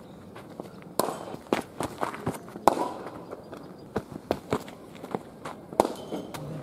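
About a dozen sharp, irregular knocks and cracks of cricket balls striking bats, the pitch and the netting. The loudest comes a little under three seconds in, and another comes about a second before the end.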